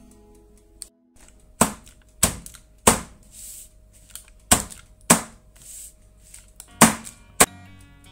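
Batter-filled metal springform cake pan knocked down on a wooden table seven times, three knocks then two pairs, to bring air bubbles out of cheesecake batter.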